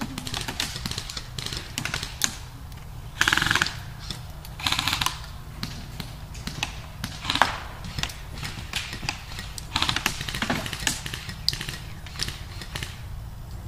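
Airsoft guns firing: several short bursts of rapid clicking automatic fire and scattered single shots, the loudest bursts about three and seven seconds in.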